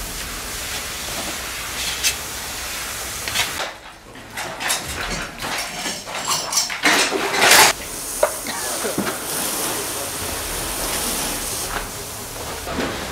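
Water from a fire hose hissing as it sprays onto burnt, smouldering debris, with clattering of debris and metal between about four and eight seconds in.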